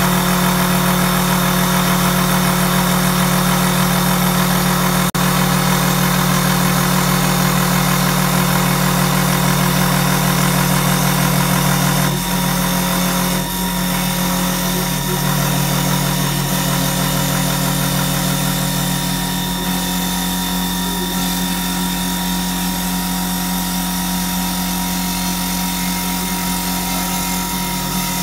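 4-axis CNC wood lathe turning a wooden spindle: a steady, loud machine hum under a continuous hiss of the cutter shaving the spinning blank. About twelve seconds in the hum shifts and gets a little quieter, and it thins further after about twenty seconds.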